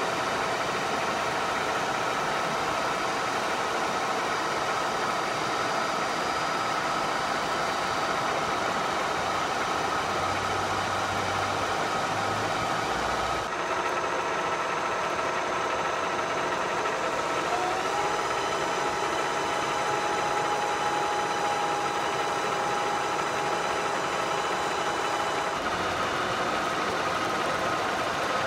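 Steady electric machine hum with several held tones from a powered-up Rockford planer mill and its drive motors. A higher whine rises in about 18 s in, holds, and stops about 25 s in.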